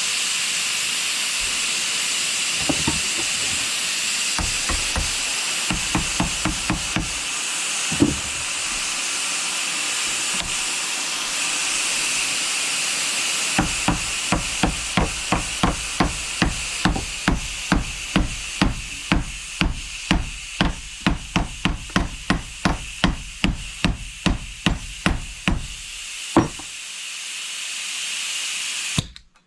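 Harbor Freight pneumatic angle grinder running flat out on compressed air with a steady loud hiss, overheating as something inside burns. A few knocks come and go, then a regular knocking sets in at about two a second before the sound cuts off suddenly near the end.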